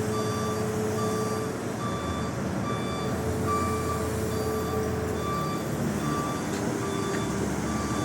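A vehicle's reversing alarm beeping at an even pace, about one and a half beeps a second, over a steady low hum.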